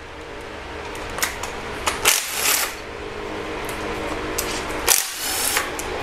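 Power tool fitted with a 12 mm socket, running steadily as it backs out a timing-cover bolt on an engine, with two short harsh bursts about two and five seconds in.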